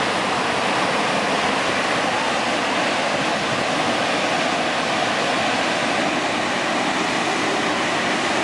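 Muddy floodwater rushing and churning through a dam spillway, a steady, unbroken rush of water.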